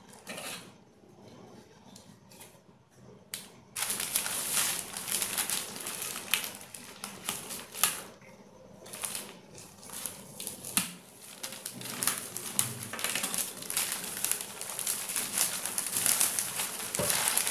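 Plastic courier mailer being cut and torn open, its plastic and bubble-wrap lining crinkling and crackling with many sharp clicks. The first few seconds are quiet, with a few faint clicks. The crinkling starts suddenly about four seconds in and goes on in uneven spurts.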